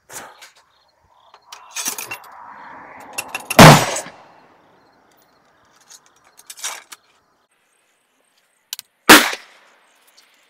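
Two loud gunshots about five and a half seconds apart, each with a short echo. In between come quieter scraping and clinks of a steel ramrod working in the barrel of a muzzle-loading rifle being loaded.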